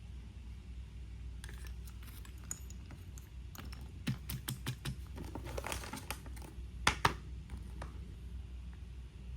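Plastic packaging crinkling and small plastic parts clicking as a blind-box action figure is handled. A dense run of clicks comes in the middle, then two sharp snaps about seven seconds in, over a low steady hum.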